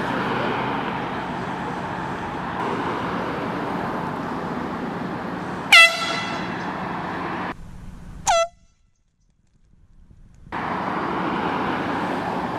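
Two short, loud blasts of an air horn, the first about six seconds in and the second about two seconds later, each dipping slightly in pitch as it starts, over a steady background hiss. Right after the second blast the sound drops out almost completely for about two seconds.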